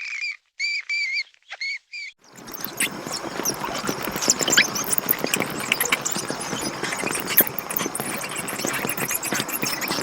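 Bats squeaking: a few short, high, pitched squeaks in quick succession. From about two seconds in comes a dense chattering of many squeaks and clicks over a hiss.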